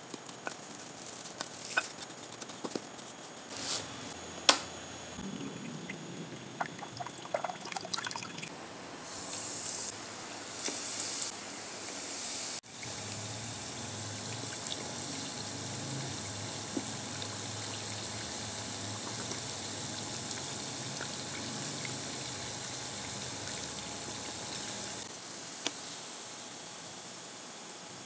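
Scattered scrapes and taps as breadcrumbs are spooned over a dough ball in a bowl, then, from about halfway through, the steady sizzle and bubbling of breadcrumb-coated dough deep-frying in hot oil.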